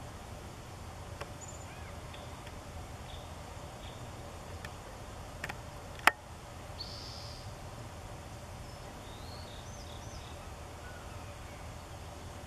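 Outdoor ambience: a steady low rumble with faint, scattered high chirps and short whistled calls of small birds. One sharp click about halfway through is the loudest sound.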